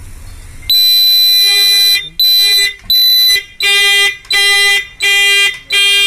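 Mahindra vehicle's turn-indicator buzzer sounding with the working indicator circuit: a shrill electronic beep, one longer tone about a second in, then short regular beeps, about four every three seconds, in time with the flashing indicator lamp.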